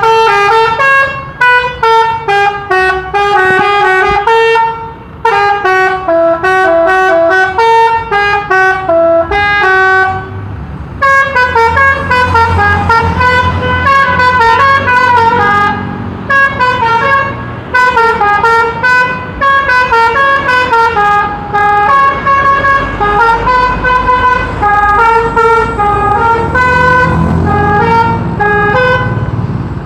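Telolet musical air horn on a pickup truck playing song tunes as a fast string of loud, stepped horn notes, with a short pause about ten seconds in before the tune resumes.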